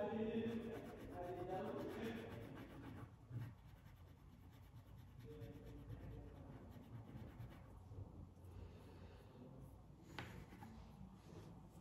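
Crayon rubbing on paper in short scratchy strokes as a letter is coloured in blue. Faint voices are heard in the first few seconds, and there is a light tap about ten seconds in.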